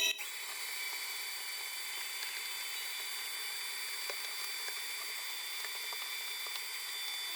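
Steady hiss with a few faint, scattered clicks.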